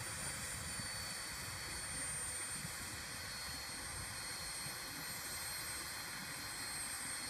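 Eurocopter EC135 helicopter's twin turboshaft engines running on the ground with the rotor turning: a steady high turbine whine over the even rush of the rotor.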